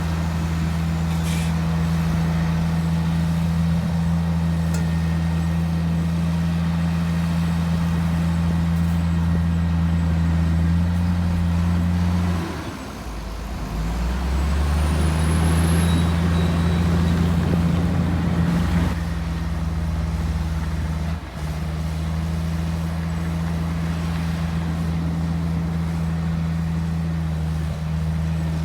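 Heavy diesel engine of earthmoving machinery running steadily. About halfway through its note drops and shifts, and a hiss lasting several seconds comes in before the steady running resumes.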